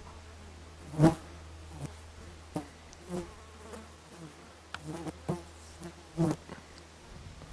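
Flies or other flying insects buzzing past the microphone in several short passes, over a low steady hum that stops near the end.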